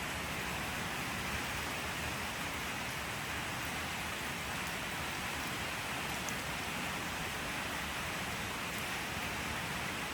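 Steady rain falling, an even hiss of many drops with no thunder or other sounds standing out.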